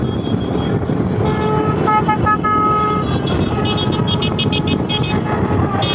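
Vehicle horns honking over the steady running of motorcycles and scooters: a held horn note from about a second in lasting some two seconds, then a quick run of short beeps, about four a second, near the end.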